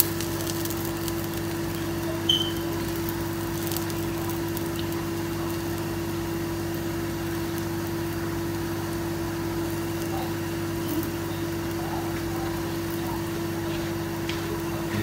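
Steady hum of a kitchen appliance motor running, with one constant low tone and a faint even hiss, and a brief small high blip about two seconds in.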